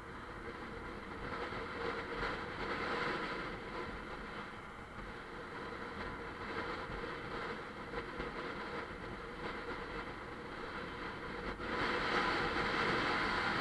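Bajaj Pulsar 150 motorcycle under way: its single-cylinder engine running steadily, mixed with wind and road noise on the camera's microphone. The noise steps up in loudness near the end.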